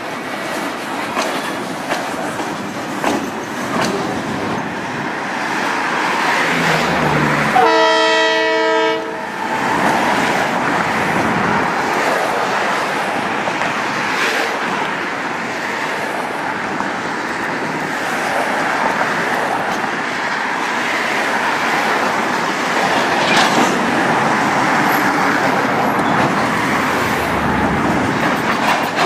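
Freight cars rolling past on the yard track, a steady wheel rumble with clicking over the rail joints. About eight seconds in, a locomotive horn gives one short blast.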